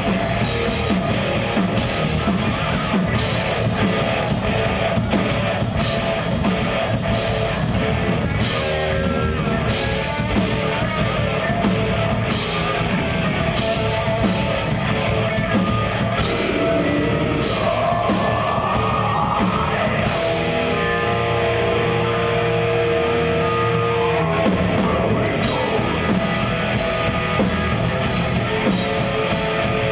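Progressive death metal band playing live: distorted electric guitars over a busy drum kit with steady cymbal hits. Past the middle the cymbals drop out for a few seconds under long held chords, then the full drumming comes back.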